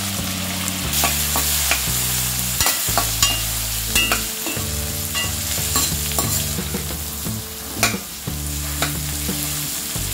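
Peanuts, garlic, chopped tomato and spices frying in oil in a stainless steel kadai, sizzling steadily, while a metal slotted spatula stirs them with scattered scraping clicks against the pan.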